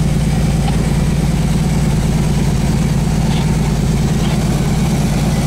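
Truck engine running steadily at an even pitch, heard from inside the cab.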